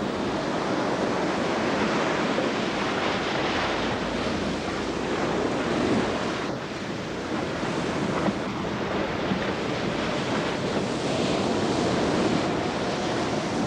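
Stormy sea and wind: a steady wash of heavy waves with gusting wind. Faint music starts to come in near the end.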